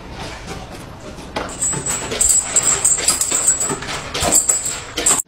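Dogs eating dry food from bowls: rapid, irregular crunching, with kibble clicking and clinking against the bowl.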